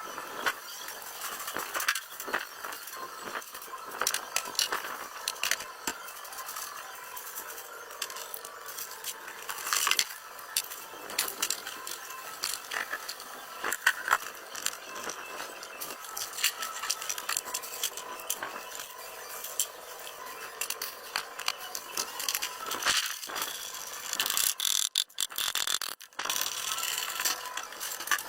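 Irregular scraping and rattling with frequent sharp clicks and knocks, from hand tools at work on the car.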